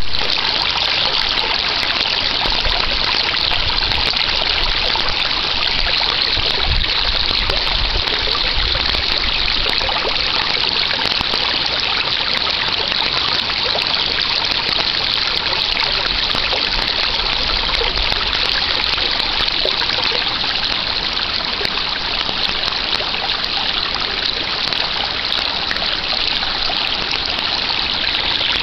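Mountain stream flowing over rocks: a steady rushing of water, with some low rumbling in the first part.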